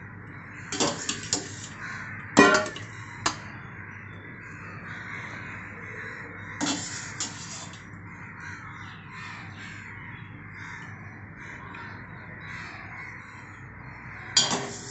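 Crows cawing outside, a few harsh calls in the first few seconds, a pair about seven seconds in and another near the end, over a steady background chatter of other birds.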